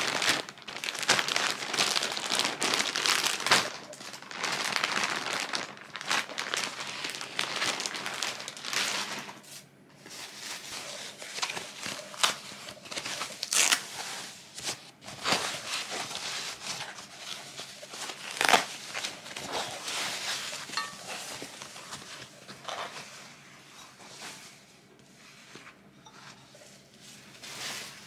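Plastic bag and thin foam wrapping sheet crinkling and rustling as a packaged item is pulled out and unwrapped. It is dense and continuous for about the first ten seconds, then breaks into separate crackles that grow quieter toward the end.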